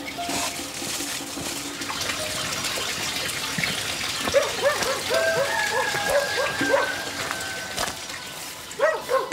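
A dog barking in a quick run of short barks about four seconds in, with two more barks near the end, over the steady rush of running water.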